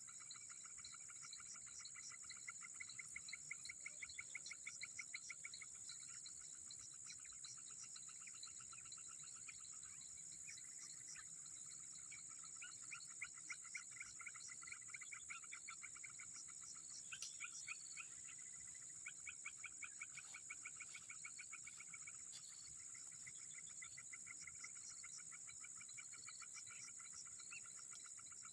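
Faint chorus of insects and frogs: a steady high-pitched insect drone, with bouts of rapid pulsed calls that come and go several times.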